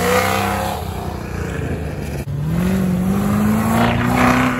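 Chevrolet C7 Corvette's V8 accelerating hard away from a standstill: the revs climb, dip briefly about two seconds in as it shifts, then climb again and ease off at the very end.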